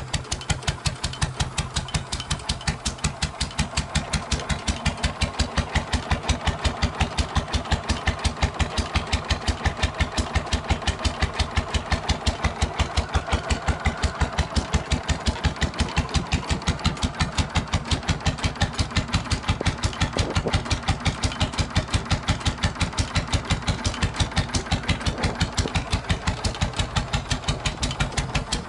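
GM 1-71 single-cylinder two-stroke diesel engine idling, with a steady, even beat of firing pulses.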